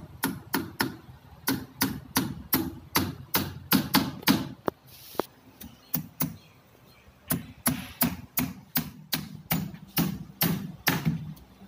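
Hammer blows on timber column shuttering: a run of sharp wooden knocks, about three a second, with short pauses around the middle.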